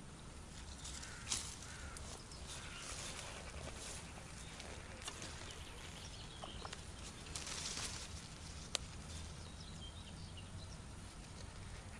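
Quiet lakeside ambience with a couple of sharp clicks, about a second in and near the end, and a brief rustle shortly before the second click, from an angler handling his fishing tackle just after a cast.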